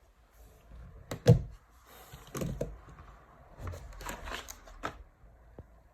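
Objects being handled and set down on a work surface: a few short knocks and rustles.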